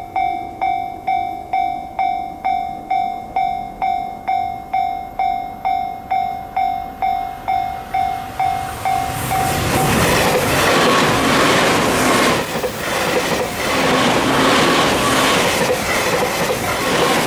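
Level-crossing warning bell ringing a little over two strikes a second. About nine seconds in, an E351 series limited express train passes, its noise and the clatter of its wheels over the rail joints drowning out the bell.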